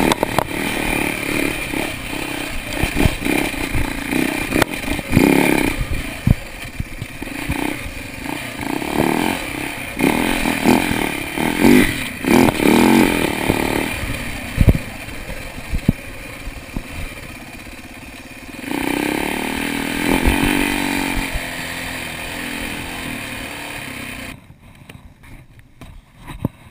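Dirt bike engine revving up and down with the throttle, with frequent knocks and clatter as the bike jolts over the rough track. The sound drops away abruptly near the end, leaving only faint knocks.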